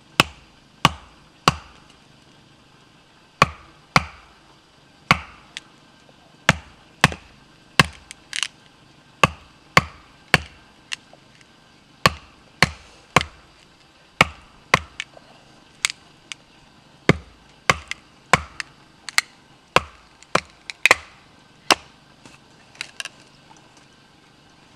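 Batoning firewood: a wooden baton knocks repeatedly on the spine of a bushcraft knife set across small sticks on a chopping block, splitting them. About three dozen sharp knocks come roughly one every half second to second, with short pauses between runs of strikes.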